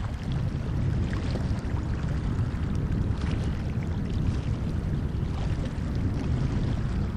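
Steady in-flight noise of a Boeing KC-135R Stratotanker: a constant low rumble with hiss above it, from the CFM56 turbofan engines and the airflow.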